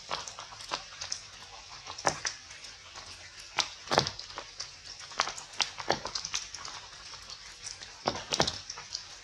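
Irregular sharp snaps and crackles of leaves and twigs as a monkey shifts and feeds in a leafy bush, over a steady high hiss.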